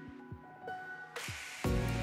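Background music. A rising swoosh builds from about a second in and leads into a louder section with deep bass near the end.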